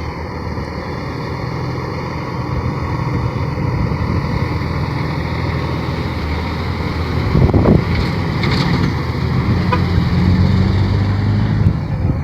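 A truck's engine running as it drives, a steady low hum, with a brief louder rush of noise about seven and a half seconds in.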